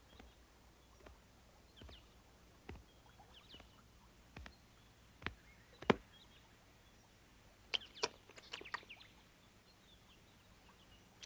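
Quiet cartoon sound effects: scattered light clicks and taps, a few louder ones in the middle and a quick cluster after about eight seconds, with faint high bird chirps in the background.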